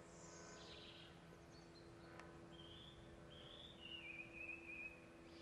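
Faint outdoor birdsong: a few short chirps, then a longer warbled phrase that falls slightly in pitch, over a quiet background with a faint steady hum.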